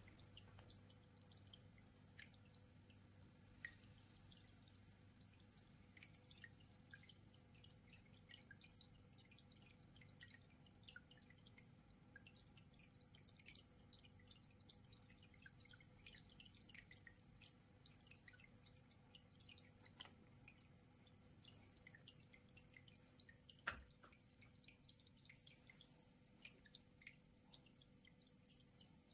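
Faint aquarium water dripping and plinking in many small, irregular drops over a steady low hum, with one sharper knock late on.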